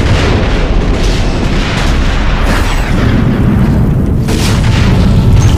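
Movie sound effects of a large starship explosion: rolling booms with a heavy low rumble and debris, and another sharp blast about four and a half seconds in.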